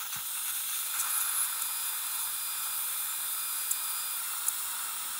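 A dental handpiece runs steadily with water spray, a continuous hiss with a faint high whine, trimming a high spot on a provisional crown after a bite check.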